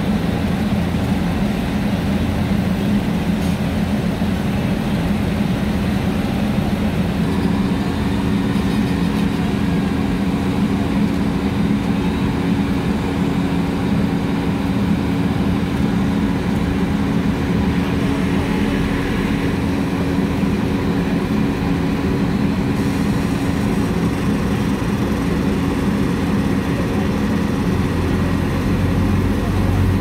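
Asphalt paver's diesel engine running steadily at a constant low speed as the machine creeps down the loading ramps off a low-bed trailer. It is a loud, even hum with a steady low tone.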